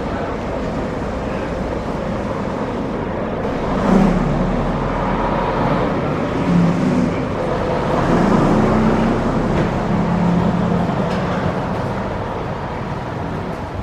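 Bus engine running with road noise; its note rises and shifts in pitch from about four seconds in, then settles back.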